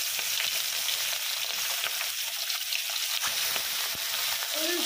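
Fish heads frying in hot mustard oil in a kadai: a steady sizzle and crackle, with a couple of short knocks in the second half.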